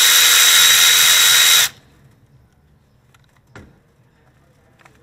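Cordless electric ratchet spinning a 10 mm ignition-coil hold-down bolt loose: a loud, steady whine that cuts off suddenly about a second and a half in. Two faint clicks follow later.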